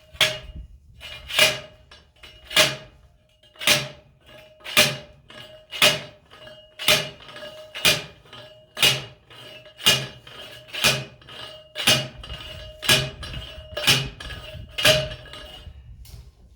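Steel fence T-post being pounded into the ground: about fifteen ringing metal strikes, roughly one a second, that stop shortly before the end.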